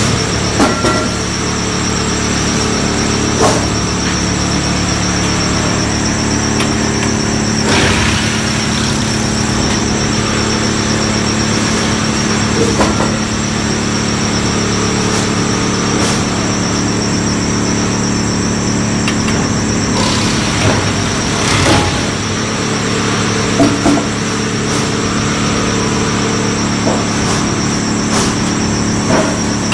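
Diametras AS421 log canter, a double milling machine for squaring logs, running steadily with its motors humming and cutter heads working, with a few sharp knocks along the way.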